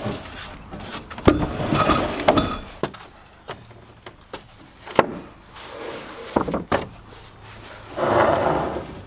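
Knocks and scraping of a structural insulated panel being handled and set in place: a sharp knock about five seconds in, a few more soon after, and two longer scraping stretches, one near the start and one near the end.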